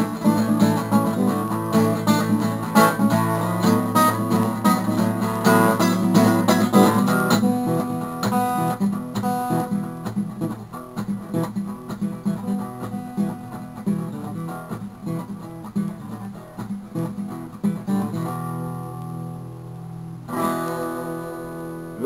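Acoustic guitar strumming an instrumental outro, dense at first and thinning out, then ending on held chords left to ring and fade.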